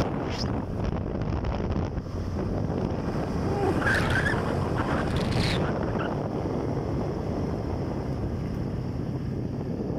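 Wind rushing over the microphone on a moving motorcycle, with the engine and tyre noise as a steady low rumble underneath.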